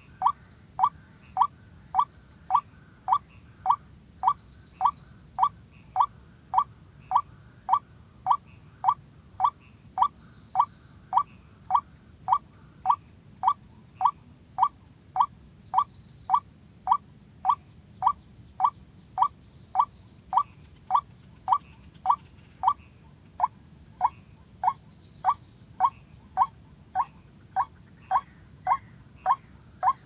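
White-breasted waterhen calling: a short, rising call note repeated steadily about twice a second.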